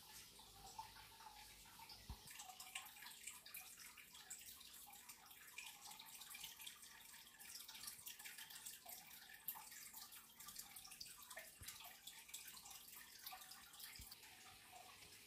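Faint water dripping and trickling: a steady patter of small droplets.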